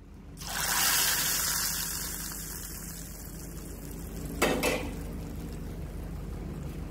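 A steady hiss over a low hum that swells up in the first second, with two quick sharp knocks about four and a half seconds in.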